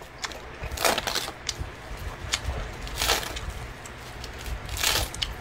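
A sheet of dry sesame-oil roasted seaweed (gim) being crushed and torn by hand, giving several short, crisp crackles a second or two apart.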